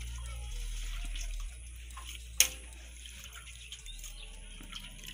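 Hands swishing and rubbing beans in a bowl of water, with small splashes and drips. A single sharp click about two and a half seconds in.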